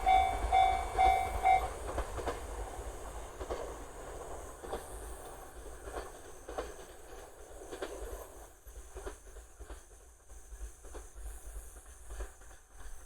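A JR-standard level-crossing warning bell dings rapidly and stops about two seconds in. Then the wheels of a two-car E131-series electric train clack over rail joints, irregular clacks over a low rumble that fade away as the train recedes.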